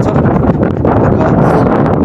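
Strong wind gusting across the microphone, a loud, steady low rumble of wind buffeting.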